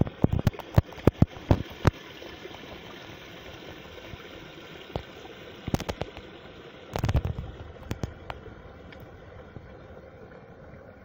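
Spring water pouring out of a stone wall into a small pool, a steady splashing. Sharp crackling clicks over it, many in the first two seconds and again around seven seconds.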